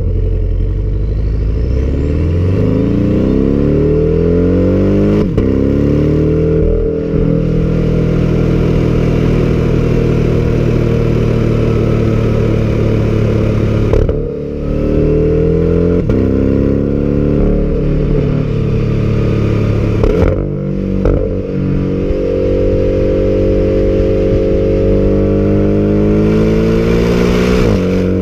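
Porsche sports car's engine and exhaust under hard acceleration, pitch climbing through each gear and dropping sharply at upshifts about 5 and 7 seconds in. The throttle lifts briefly about 14 and 20 seconds in, then the engine pulls again, rising steadily through a long gear until another shift near the end.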